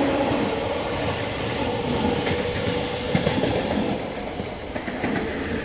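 Electric local train passing close alongside on the next track, its carriages rushing by with wheels clattering over the rails, heard from another moving train. The noise eases gradually.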